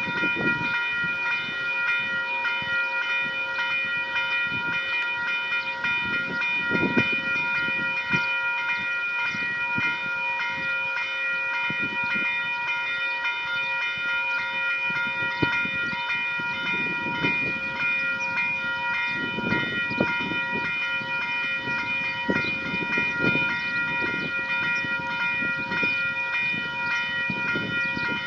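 Railway level crossing's electronic warning bell ringing continuously with a rapid, even pulse over steady tones, signalling that a train is approaching.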